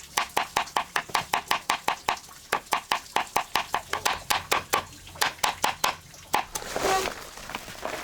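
Rapid, evenly spaced strikes, about five a second, each with a short hollow ring; they stop about six seconds in, and rustling follows.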